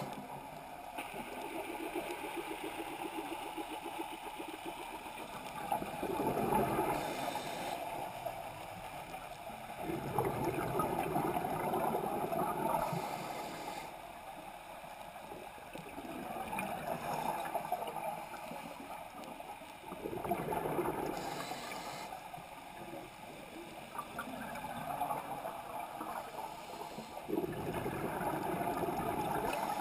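Scuba diver breathing through a regulator underwater, heard through the camera housing. Exhaled bubbles gurgle in swells every few seconds, with a short hiss of inhalation between some of them.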